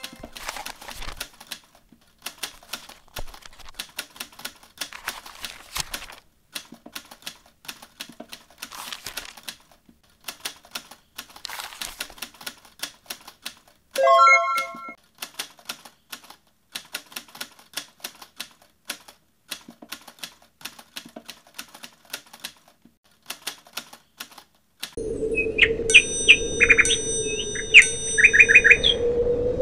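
Typewriter key clicks, a fast irregular clatter of keystrokes, with a short bell-like ding about halfway through. Near the end the clicking stops and birds chirp and whistle over a steady droning tone.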